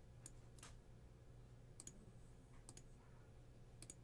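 A handful of faint, separate clicks from operating a computer, spaced irregularly over low background hum.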